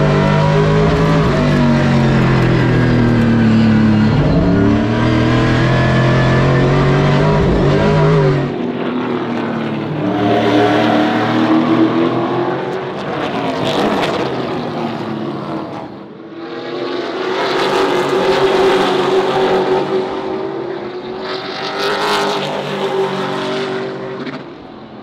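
Pro Late Model race car's V8 engine at speed on track, heard from inside the cockpit, its pitch rising and falling as the driver accelerates and lifts through the corners. About eight seconds in the sound changes abruptly to a thinner engine note with rushing noise that swells and fades several times.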